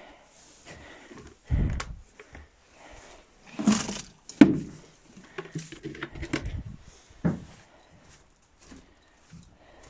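Irregular thumps, rustles and clatter of someone moving about a straw-bedded horse stall, with the phone itself being handled; the loudest knocks come at about one and a half, four and seven seconds in.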